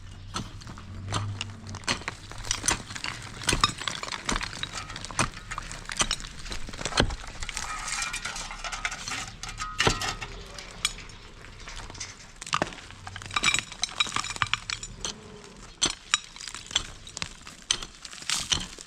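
Irregular clinks and knocks of hard objects striking one another, many short sharp hits in quick succession.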